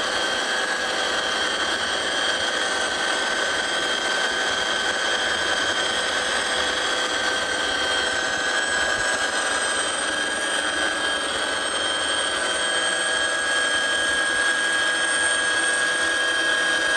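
Military helicopter in flight, heard from inside the cabin: loud, steady engine and rotor noise with several high whining tones over a rushing noise.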